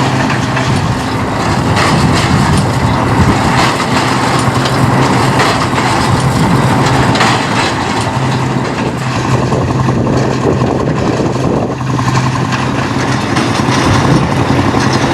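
An engine running steadily at a constant speed, a low hum under a rough, noisy clatter.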